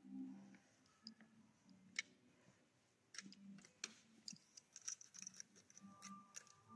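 Near silence: quiet room tone with faint scattered clicks and ticks, and a thin steady tone coming in near the end.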